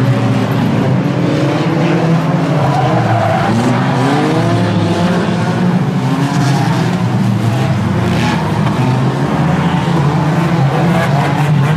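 Several banger racing cars' engines running together and revving, their pitch climbing and falling as the cars accelerate round the oval.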